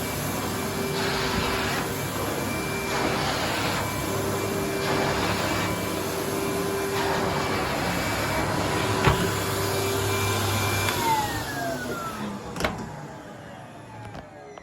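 Numatic NVH-180 vacuum cleaner motor running steadily with a whine, then switched off about eleven seconds in and spinning down, its whine falling in pitch and fading. Two sharp clicks stand out, one shortly before the switch-off and one during the run-down.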